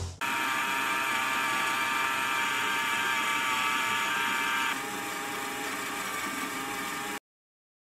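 Lego Technic gearbox running, its plastic gears whirring steadily with a high whine. The whine drops a little before five seconds in, and the sound cuts off suddenly about seven seconds in.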